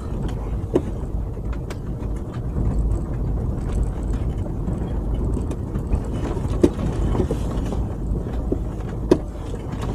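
Car engine running low and steady, heard from inside the cab while driving slowly over a rutted mud track, with a few sharp knocks and rattles.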